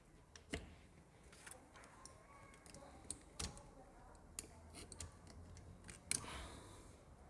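Faint scattered metal clicks and taps of engine parts being handled as a kickstart shaft and its washers are fitted into a motorcycle crankcase.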